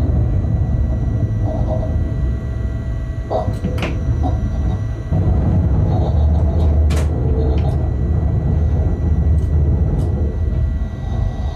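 Locomotive running slowly through yard points, heard from the cab: a steady low rumble with a constant whine above it, and several sharp clicks and knocks as the wheels cross rail joints and switch frogs. The rumble steps up in loudness about halfway through.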